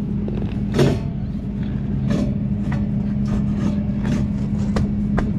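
An engine idling with a steady low hum, with several short knocks and scrapes from hard plastic gear being handled on pavement. The loudest knock comes about a second in.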